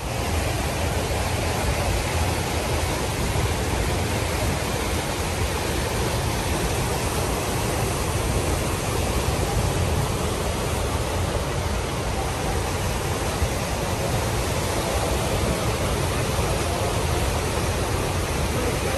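Fast-flowing muddy floodwater rushing down a street, a steady, even rushing noise that does not let up.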